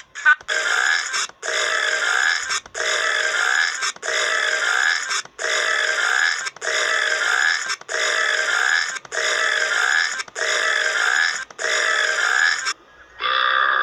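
The same burp repeated about ten times in a row, each just over a second long with short gaps between, the copies alike as if looped.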